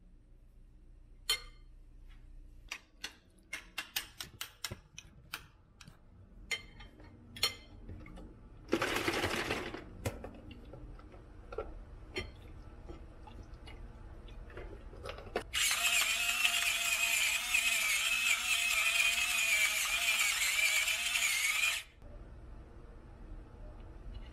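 Spoon and food containers clinking and scraping against a ceramic bowl as food is scooped in, with a short rush of food sliding out partway through. Later a louder steady rushing sound runs for about six seconds and cuts off suddenly.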